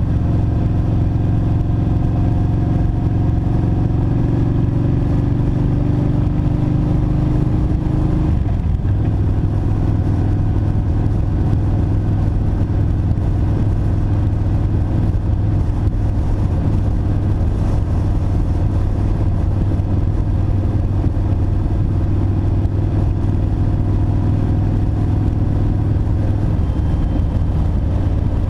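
2007 Kawasaki Vulcan Mean Streak's V-twin engine running on the move. Its pitch rises slowly for the first eight seconds or so, drops at a gear change, then holds steady for the rest.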